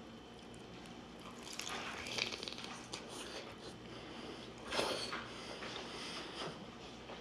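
Close-miked eating: bites into birria tacos and chewing, in irregular bursts, the loudest about two seconds in and just before five seconds.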